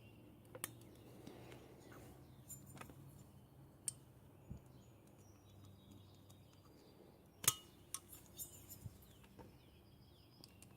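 Scattered small metal clicks and clinks of hand tools working on the small parts of an RC nitro car's clutch assembly, with one sharper click a bit past the middle, over a faint steady hum.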